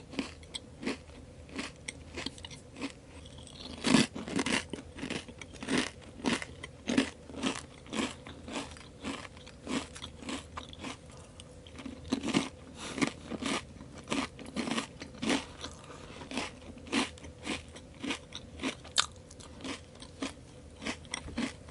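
Crisp chips being bitten and chewed with the mouth close to the microphone: a steady run of sharp crunches, about two or three a second, with a louder bite about four seconds in.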